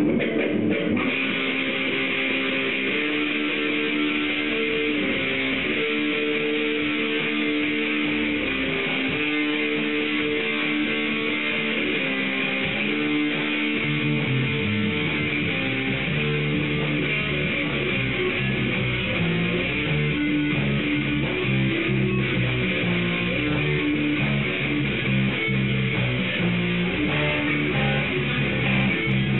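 Amplified electric guitar playing a repeating riff. About halfway through, a lower line joins in beneath it.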